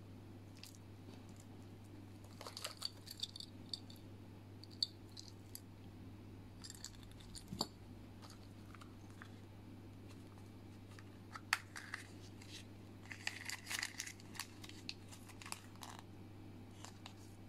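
Quiet handling of small plastic toys and their packaging: cellophane bags crinkling, with small clicks and rattles from ball-chain keychains and plastic capsules, in scattered short bursts over a steady low hum.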